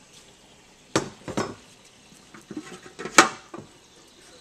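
A cooking pan and its lid knocking and clattering as they are handled and set down: several separate clanks, the first about a second in, the loudest a little after three seconds in.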